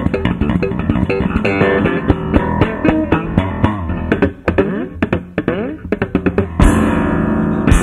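Live rock band playing an instrumental break led by bass guitar, with fast plucked notes. The middle thins out into sliding pitches, and the full band comes back in louder near the end.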